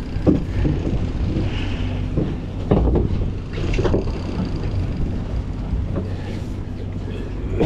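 Charter fishing boat's engine running steadily with a low hum, wind buffeting the microphone, and faint voices now and then.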